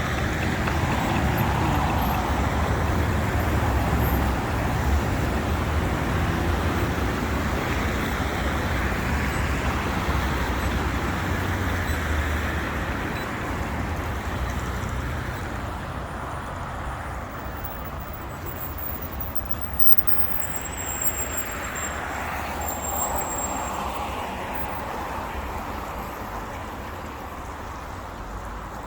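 City road traffic: a steady wash of passing cars, louder in the first half and easing off in the second.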